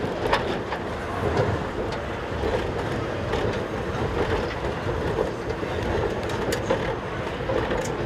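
The Reichenbachfall funicular car running down its track: a steady rumble of wheels rolling on the rails, with scattered clicks.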